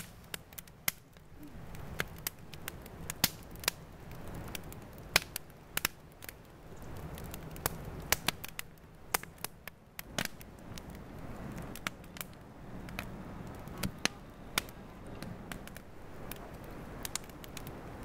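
Wood campfire crackling, with sharp irregular pops from the burning wood several times a second over a low steady rush.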